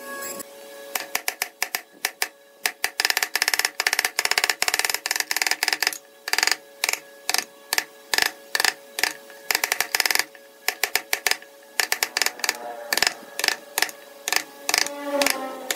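A wood chisel tapped into pine with a scrap block of wood used as a mallet: quick runs of sharp wooden knocks, several a second, with short pauses between runs.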